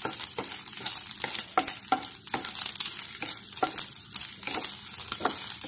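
Prawns sizzling in a little coconut oil in a frying pan, stirred with a wooden spatula whose strokes scrape and tap on the pan. The prawns are already boiled and are only being roasted lightly.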